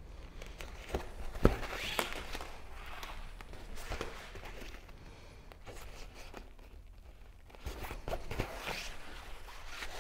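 Hand-sewing a fabric kayak skin: the fabric rustles as thread is drawn through it, with scattered light clicks and knocks. The sharpest knock comes about one and a half seconds in, and there is a quieter stretch after the middle.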